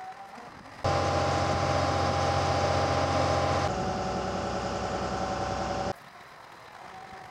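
Mobile crane's diesel engine running loud and steady with a steady high whine over it, starting abruptly about a second in, changing tone partway through and cutting off abruptly about six seconds in.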